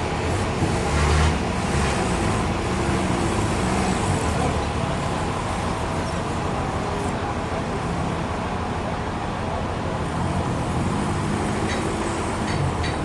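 Steady, loud mechanical din of sawmill machinery running, with a low rumble and a couple of heavier knocks about a second in.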